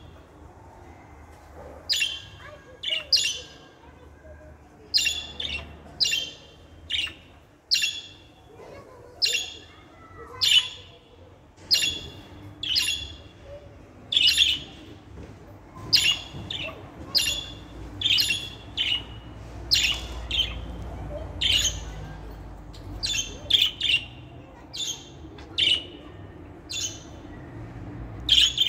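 Budgerigars giving short, sharp chirping calls, roughly one or two a second, with brief gaps between them.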